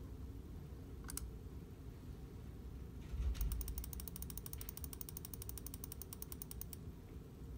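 A rapid, even run of sharp mechanical clicks, about ten a second, lasting some three and a half seconds, preceded by a single click about a second in and a low thump just before the run starts.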